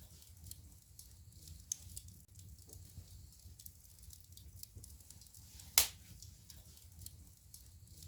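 Wood fire crackling in a fireplace: scattered small pops and ticks over a low steady rumble, with one loud sharp crack about six seconds in.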